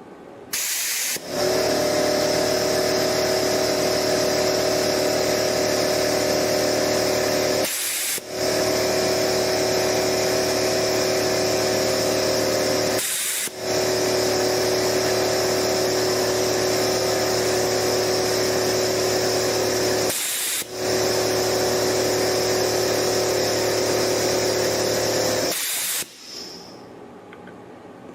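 Shop-air-powered desoldering gun (Metcal MX-DSI) running with its trigger pulled: a loud, steady rush of air with a hum of a few steady tones. It cuts out briefly three times as the trigger is released and pulled again, and stops near the end.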